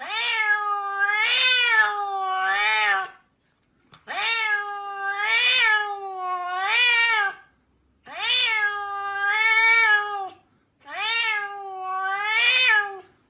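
Domestic cat yowling in four long wavering calls with short gaps between. Each call rises and falls two or three times, like an alarm siren.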